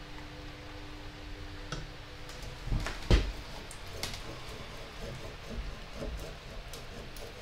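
A few sharp knocks and clunks of tools and metal being handled during brass dent work on a trumpet bell, the loudest a quick double knock about three seconds in. A faint steady hum under them stops about two seconds in.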